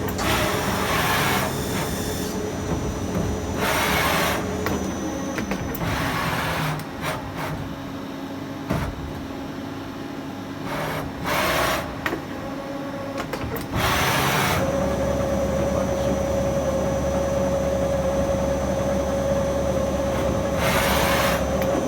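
MOMAC TA 20 CNC lathe running: a steady machine hum and whine, with a stronger steady tone and low hum setting in about two-thirds of the way through. It is broken by six short bursts of hiss of about a second each.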